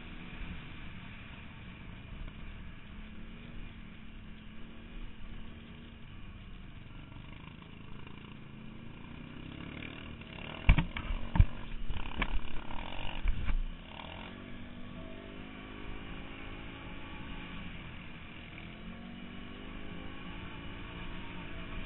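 Quad bike engine running under throttle while ridden, its note rising and falling as it speeds up and eases off. About halfway through, several loud knocks and rattles come close together for about three seconds.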